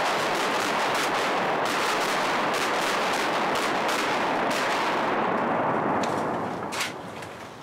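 Rushing roar of wings from a large flock of gadwalls pouring down into flooded timber, a steady dense whoosh full of quick flutters that fades away over the last second and a half.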